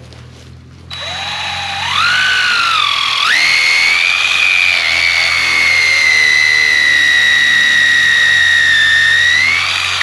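Cordless drill boring a hole into a dead tree trunk with a large bit. The motor's whine starts about a second in, climbs in pitch in a few steps, then holds steady for several seconds and rises a little just before it stops.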